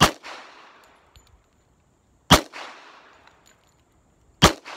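Three .45 ACP pistol shots from a Springfield Armory 1911 Mil-Spec firing 230-grain jacketed hollow points, a little over two seconds apart. Each shot is followed by an echo that dies away. The gun feeds and fires each round without a stoppage.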